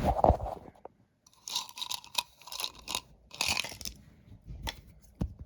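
Crinkling and crunching from a surprise egg being handled and opened, in several short bursts with a few sharp clicks near the end.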